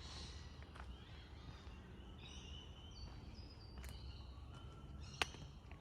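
Outdoor bushland ambience with birds calling: a run of high, stepped whistling notes from about two to four seconds in, over a low steady rumble. A single sharp click about five seconds in is the loudest sound.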